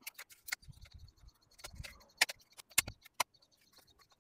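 Irregular sharp clicks and rattles as a metal retaining ring is snapped into the clips on the back of a wheel cover, with a few dull handling knocks; the loudest clicks come about two and three seconds in.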